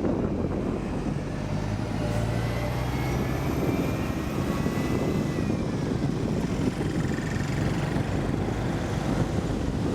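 Sea wind buffeting the microphone with a steady low rumble, while an aircraft passes, its engine whine dropping in pitch around the middle.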